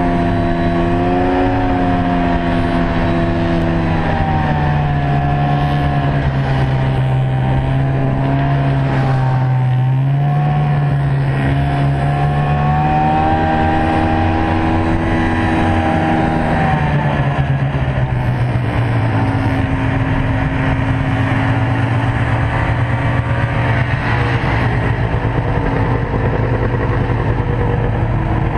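Snowmobile engine running steadily, its pitch stepping down and back up several times as the throttle and speed change.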